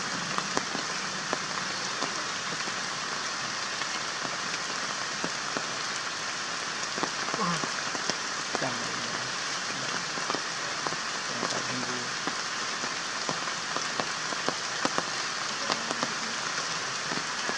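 Steady outdoor hiss with scattered light ticks, the kind of sound rain makes pattering on leaves, and a few faint distant calls or voices about halfway through.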